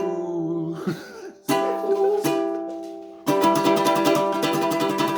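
A voice sings "sniffles" over a chord on a strummed string instrument. A second chord is struck about a second and a half in and rings out. About three seconds in, rapid strumming starts.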